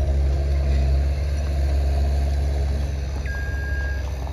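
Pickup truck engine idling steadily with a low hum. Near the end a single long electronic beep sounds, like the first of a reversing alarm.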